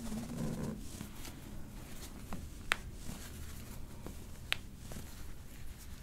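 A few sharp, isolated clicks over light handling rustle, the loudest about two and a half seconds in and another about four and a half seconds in.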